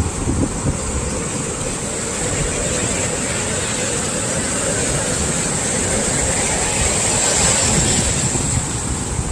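Swell waves breaking and washing on the shore: a continuous rush of surf that grows louder around seven seconds in as a wave breaks.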